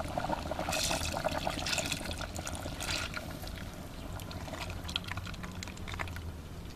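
Soaked beans tipped from a glass into a cast-iron potjie of simmering stew, splashing and pattering into the liquid. It is densest for the first few seconds, then thins to scattered drips and clicks.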